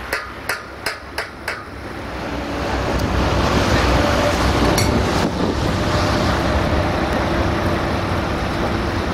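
About five sharp knocks, roughly three a second, in the first second and a half, then a Liebherr mobile crane's engine rising and running loud and steady as the hook is worked.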